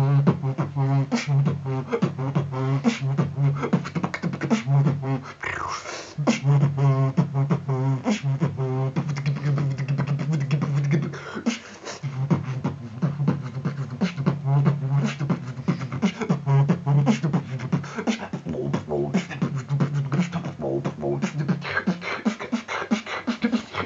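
Freestyle vocal beatboxing: a held low bass hum under fast clicks and snare-like strikes. The bass drops out a few times, leaving only the percussive sounds.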